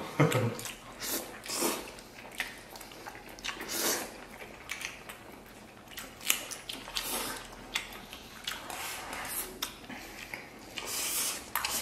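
Close-up eating sounds: wooden chopsticks clicking against porcelain bowls and the stew pan, with chewing between the clicks.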